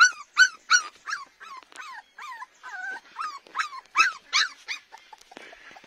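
Puppies whimpering and yelping in a rapid string of short, high-pitched cries, about three a second, most falling in pitch, thinning out near the end.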